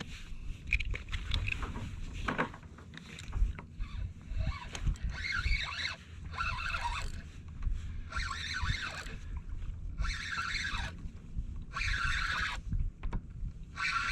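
A fishing reel being wound in spurts, about every one and a half to two seconds, while fighting a gurnard hooked on a slow pitch jig. Low rumble of wind and water lies underneath.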